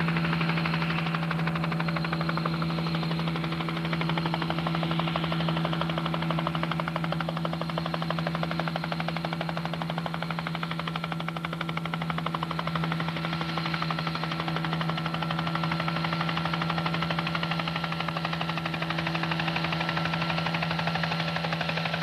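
Helicopter in flight, its rotor beating in a rapid, even chop over a steady engine hum.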